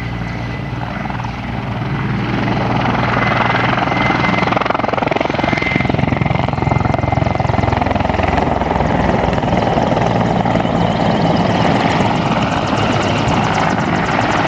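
Mil Mi-24 attack helicopter in flight: its twin turboshaft engines run with the fast, steady chop of the main rotor. It grows louder about two seconds in and stays loud.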